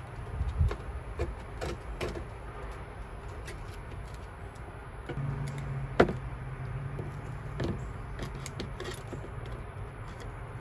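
Griptape being worked onto a skateboard deck: hands pressing and rubbing the sheet, and a hand tool scraping along the deck's edge, in irregular scrapes and small clicks. There is a single sharp knock about six seconds in.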